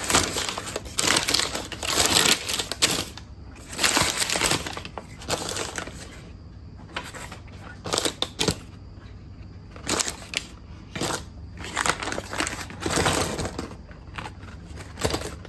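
A bag of small 3D-printed plastic parts and screws being handled and emptied: crinkling and rustling with scattered light clicks and clatters as pieces are set down, busiest in the first few seconds.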